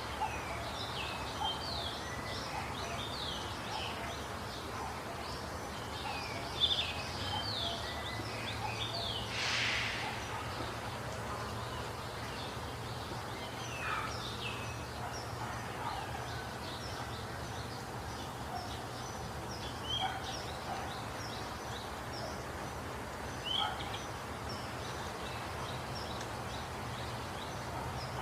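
Several small birds chirping and twittering in short, quick notes, busiest in the first third, over a steady low background hum.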